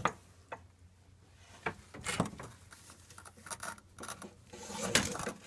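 Irregular rubbing and scraping handling noises with several sharp clicks, the loudest scrape about five seconds in.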